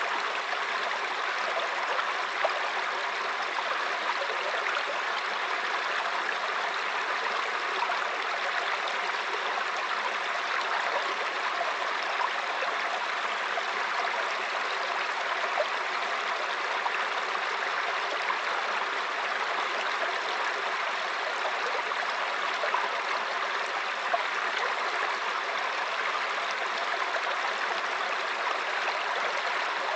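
Mountain stream running over rocks: a steady rush of water with small splashes and gurgles.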